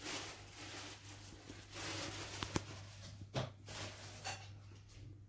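Faint background noise with a steady low hum and a few light clicks and taps, the sharpest about two and a half seconds in.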